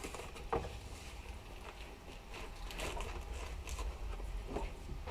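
A few faint, short knocks over a low steady hum.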